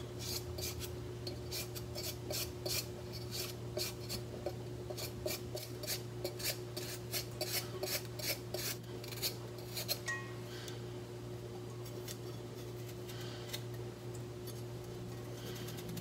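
A kitchen knife shaving thin slivers off a peeled burdock root: a quick run of short scraping strokes, a few a second, which thin out after about ten seconds. A steady low hum runs underneath.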